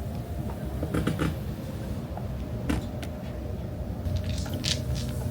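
Steady low rumble with a faint steady hum, broken by a few light clicks and taps.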